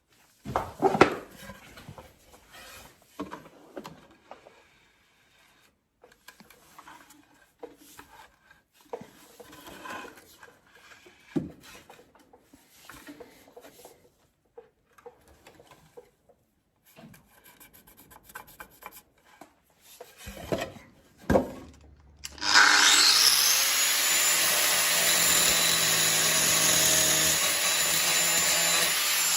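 Scattered knocks and rubbing as wood and hardware are handled, then about 22 seconds in a power tool's motor starts with a brief rising whine and runs steadily and loudly.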